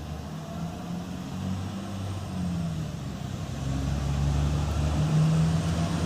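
Southern Vectis bus approaching, its engine running and getting steadily louder as it draws near.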